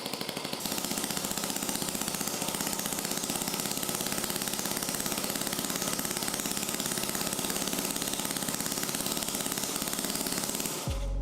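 Homemade welding machine's arc crackling and buzzing steadily, cutting off abruptly near the end.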